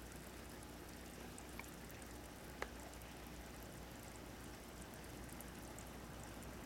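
Aquarium filter running: a low steady hum with faint water trickling, and two small clicks, the sharper one about two and a half seconds in.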